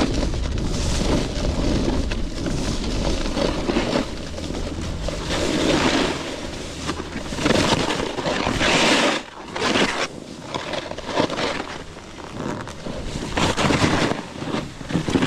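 Snowboard sliding over snow, its edge scraping in repeated surges as it turns, with wind rumbling on the microphone.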